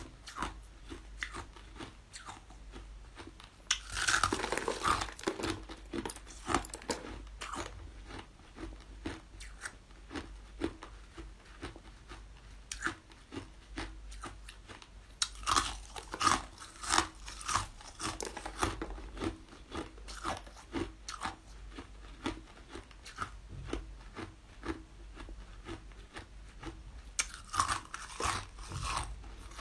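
Coloured ice being bitten and chewed close to the microphone: sharp brittle crunches throughout, with three louder runs of bites, one a few seconds in, one in the middle and one near the end.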